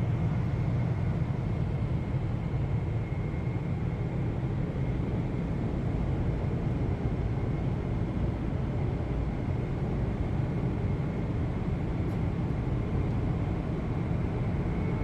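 Steady low rumble of cabin noise inside a Boeing 747-8i airliner, with a faint high steady tone above it.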